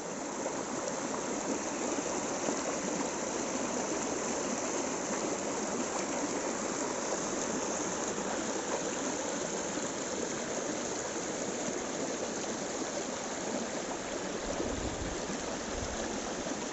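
Shallow stream rushing and splashing over rocks: a steady, even water noise.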